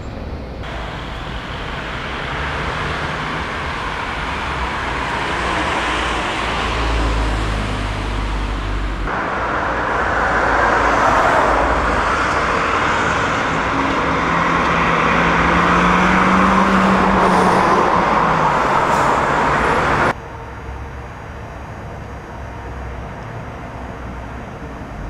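Motorway traffic noise: a steady rush of passing vehicles that grows louder about nine seconds in, with one vehicle's engine note rising and holding for a few seconds. About twenty seconds in it cuts off abruptly to a quieter, even hum.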